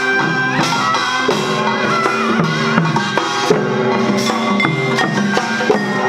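Crossover ensemble music with Korean traditional percussion: drums and gongs beat a steady rhythm under held notes and a wavering melody line.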